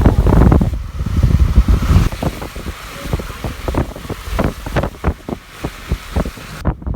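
Storm wind buffeting the microphone. The gusts are heavy for the first two seconds, then ease into irregular pops and rumbles.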